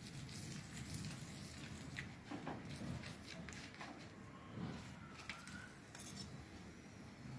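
Faint scraping and a few light clicks of a steel spoon against an iron tawa as ghee is spread over a paratha, which is turned over partway through.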